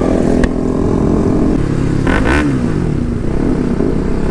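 Bajaj Pulsar RS 200's single-cylinder engine running loud through an aftermarket Austin Racing full-system exhaust while the bike is ridden along the road, with one sharp click about half a second in.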